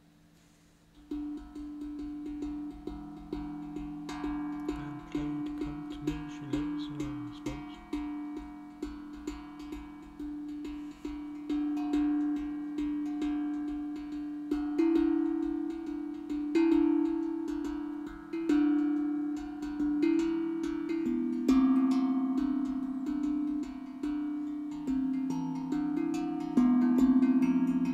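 Tuned steel drum played with the fingers: a melody of struck, ringing notes that overlap as each one sustains. The playing starts about a second in.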